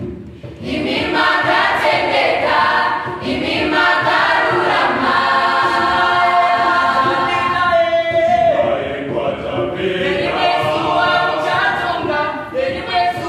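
Large mixed choir of boys' and girls' voices singing, with a short break between phrases right at the start before the voices come back in.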